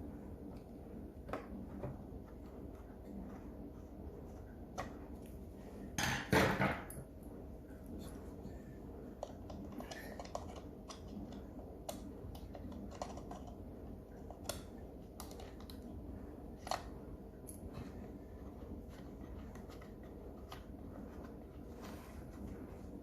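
Small scattered clicks, taps and scrapes of a tool and metal parts as the screw holding a cuckoo clock's bellows is worked loose, with a brief louder clatter about six seconds in.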